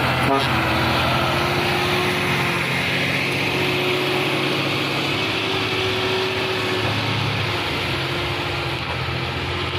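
Diesel engine of a heavy truck running steadily as it drives a slippery mud track.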